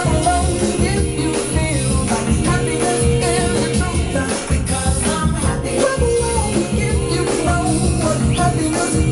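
Music with vocals.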